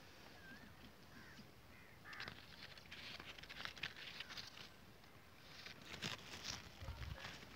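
Faint rustling of grapevine leaves and grape clusters as a hand brushes through them, in a few short scratchy spells about two seconds in, through the middle, and again around six seconds in.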